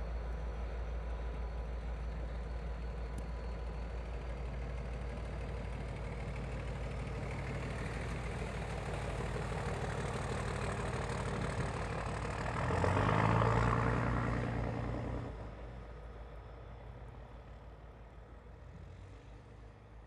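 Norfolk Southern diesel-electric locomotives running as a freight train approaches, a steady low engine rumble. It grows louder about 13 s in for a couple of seconds, then fades away.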